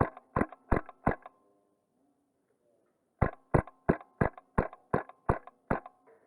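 Wolverine MTW HPA airsoft rifle firing single shots in quick succession, each a sharp crack: four at about three a second, a pause of about two seconds, then eight more at the same pace.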